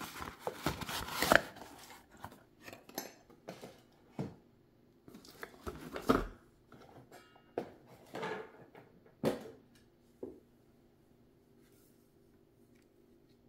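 Small metal sewing-machine attachments being handled and set down: irregular clinks, clicks and knocks of metal parts, busiest in the first ten seconds, then dying away.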